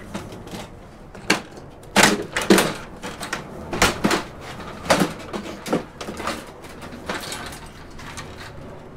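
Plastic housing of a Sony projector knocking, clicking and creaking as its casing panels are handled and pulled open. The knocks come irregularly, the loudest about two and five seconds in.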